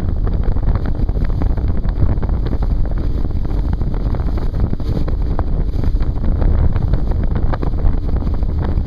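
Steady, heavy wind buffeting the microphone aboard a 19-foot Pro-Line boat running at about 38 mph, with the boat's own running noise beneath it.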